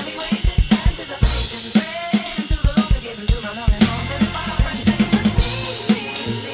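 Drum kit playing a fast groove of kick-drum and snare hits along with the song's backing track.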